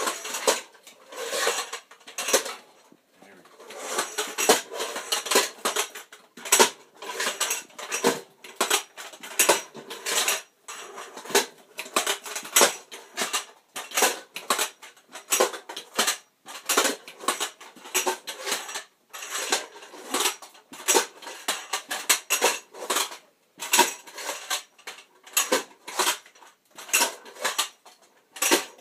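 Metal-tube stilt legs of a robot costume clanking and rattling as they are walked, a fast, irregular run of sharp metallic clinks and knocks at the joints and round metal feet on a concrete floor.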